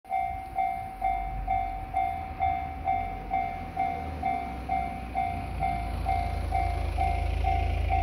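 Japanese railway level-crossing alarm ringing its repeated electronic "kan-kan" bell tone, about two dings a second, while the barrier is down.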